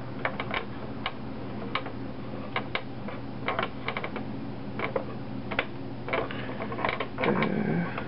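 Irregular light clicks and ticks of fingers handling the looper mechanism of a Singer four-thread serger while threading it, over a steady low hum, with a louder spell of handling noise about seven seconds in.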